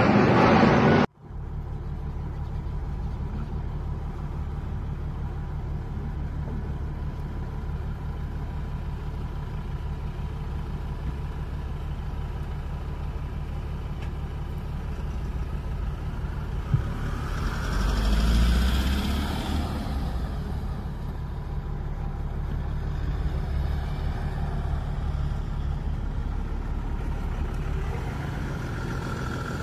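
A jet airliner passing low overhead, loud for about the first second before it cuts off abruptly. Then a steady low rumble of engines and traffic, swelling once about two-thirds of the way through.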